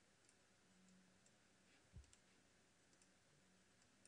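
Near silence, with a few faint computer mouse clicks and one soft low thump about halfway through.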